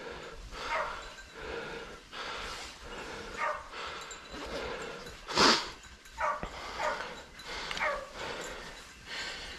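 Hunting dogs barking repeatedly at irregular intervals, with one louder bark about five and a half seconds in: hounds giving voice as they drive wild boar.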